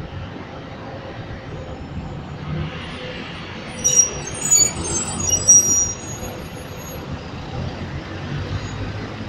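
Volkswagen low-floor city bus driving past close by with its engine running, its brakes giving several short high-pitched squeals about four to six seconds in, over steady street traffic.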